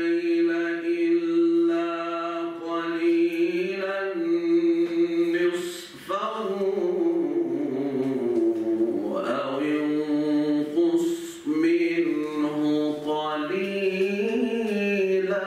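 A solo male voice reciting the Quran in a melodic chant, holding long notes and sliding through ornamented turns, with two short pauses for breath, about six and eleven seconds in.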